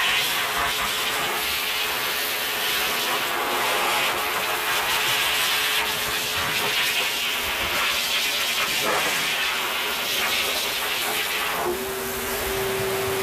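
Dog blow dryer blowing air through its hose nozzle onto a wet dog's coat: a steady rushing hiss, with a faint hum that steps slightly lower in pitch near the end.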